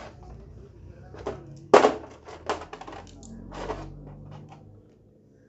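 Metal engine parts and hand tools clinking and knocking together during motorcycle engine assembly, with one sharp clank about two seconds in and a few lighter clinks after it.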